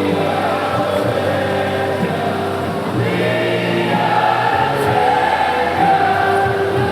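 Music with many voices singing together, loud and continuous.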